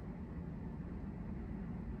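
Steady low background rumble of room tone, with no distinct sounds standing out.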